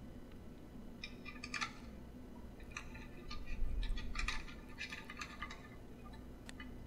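An antenna being screwed by hand onto the threaded metal connector of a small plastic network box: faint scratchy clicks and rubbing in short spells as the nut is turned.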